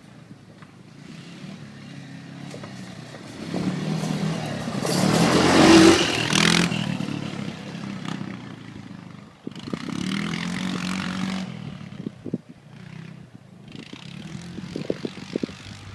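ATV (four-wheeler) engine running and passing close by. It grows louder to a peak about six seconds in, eases off, and surges again for a shorter spell about ten seconds in.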